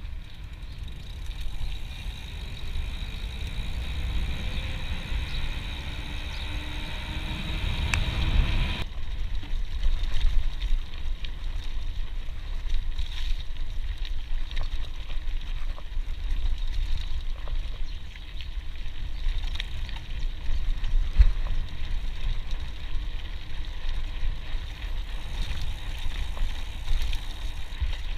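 Mountain bike riding: wind buffeting the chest-mounted action camera's microphone as a steady low rumble, with the bike rattling and clicking over a rough dirt track. For the first nine seconds a faint steady high hum sits above it, then stops abruptly.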